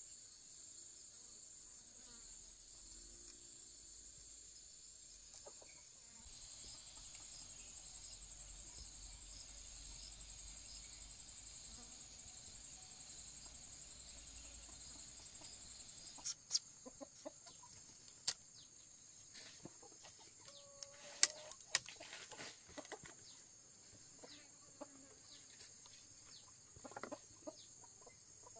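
Chickens clucking over a steady high drone of insects, with scattered sharp knocks and clicks in the second half.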